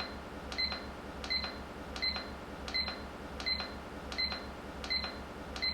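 Digital alarm clock giving a short, high electronic beep about every 0.7 seconds, one for each press of its setting buttons while the year digit is stepped. A faint low hum runs underneath.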